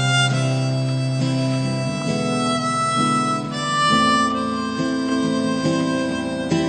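Harmonica playing an instrumental break of long held notes, changing pitch every second or two, over a guitar backing in a recorded song.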